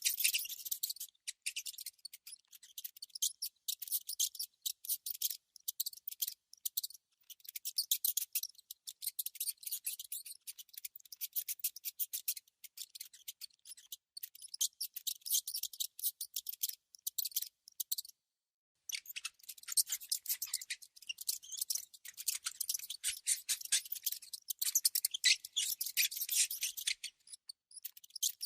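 A mouse making rapid, dense, high-pitched clicking and scratching sounds in runs with short breaks, and a silent gap of about a second two-thirds of the way through.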